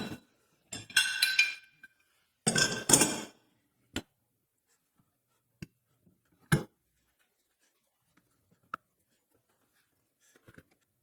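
Metal 90-degree corner clamps clinking and rattling as they are handled and set on the wood: two short ringing clatters in the first few seconds, then a few separate knocks and taps.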